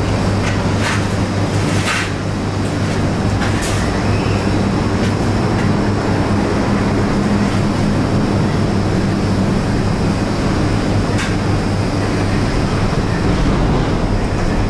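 Steady hum and rumble of welding-shop machinery. A few short scrapes come from brooms sweeping the concrete floor, mostly in the first few seconds.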